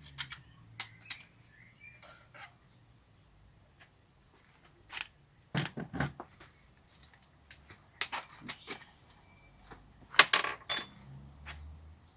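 Irregular metallic clicks and clinks of a 2.5 mm Allen key working the screws that hold the camera tray to a gimbal cradle, loosening them to take the camera off. The clicks come in scattered clusters with quiet gaps, the loudest cluster near the end.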